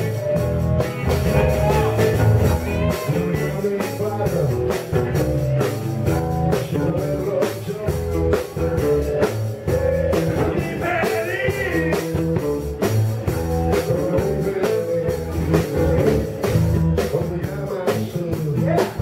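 Live blues-rock band playing steadily, with electric guitar over a drum kit.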